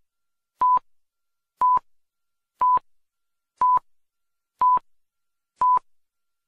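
Electronic beeps: a short, pure single-pitch tone repeating once a second, six times, each beep the same pitch and length.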